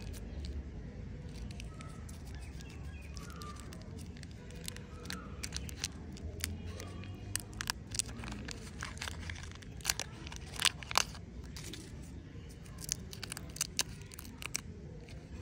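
A lollipop wrapper being peeled and torn open by hand: irregular crinkling and sharp crackles, loudest a little past the middle, over a low steady hum.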